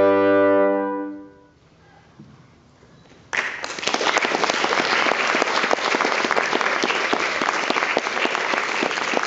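Brass quintet of trumpets, horn, trombone and tuba holding a final chord, released about a second in and fading into the room. After a short pause, audience applause starts suddenly about three seconds in and keeps going.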